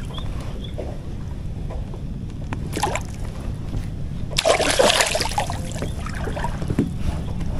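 A large hooked catfish splashing at the water's surface as it is pulled in alongside the boat, in two short bursts, the longer one about four and a half seconds in. A steady low hum runs underneath.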